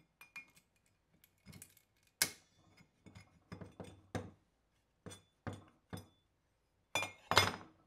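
Hand tools striking and clinking against the steel of an old broad axe head while working a pin out of it: about a dozen light, sharp metallic taps at irregular intervals, some with a short ring, the loudest about two seconds in and a close pair near the end.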